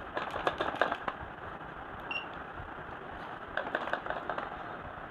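Two short runs of small, sharp clicks and rattles from objects being handled: one in the first second and another about three and a half seconds in, over a steady background hiss.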